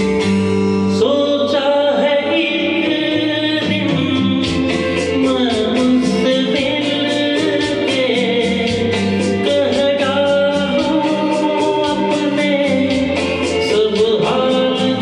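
A voice singing a song over instrumental accompaniment with a steady, evenly repeating beat.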